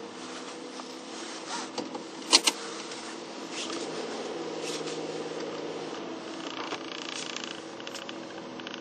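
Car driving slowly, heard from inside the cabin: a steady engine and road hum. Two sharp clicks come close together about two and a half seconds in.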